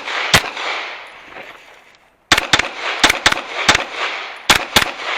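Pistol shots from a handgun, with a short echo after each: two shots at the start, a pause of about two seconds, then a fast string of about seven more, mostly in quick pairs.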